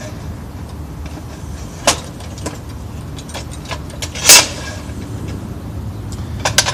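Hand-handled Craftsman radial arm saw blade guard clicking and rattling against the saw's metal parts as it is worked free: a few sharp clicks, a short louder rattling scrape about four seconds in, and a quick run of clicks near the end. A steady low rumble runs underneath.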